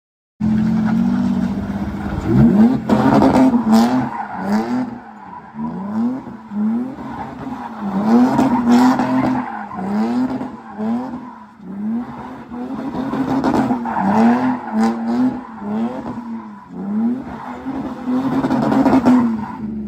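A car engine revving up and down over and over, about once a second, with tyre squeal, as in drifting.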